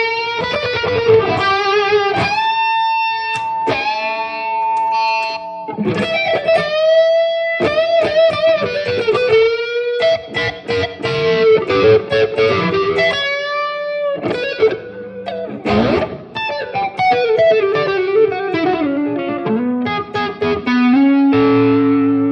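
Stratocaster-style electric guitar played through a Headrush Prime amp-modelling preset set for a mid-gain classic rock "brown sound" overdrive. It plays a lead line of sustained, bent notes and quick picked runs, and ends on a held low chord.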